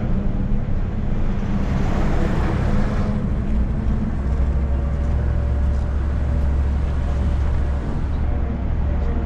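City minibus engine running with road noise, a steady low rumble. A rush of noise swells about two to three seconds in, and the engine note drops lower about four seconds in.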